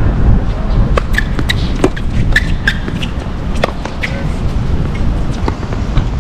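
Irregular sharp pops of tennis balls being struck and bouncing on hard courts, over a steady low rumble.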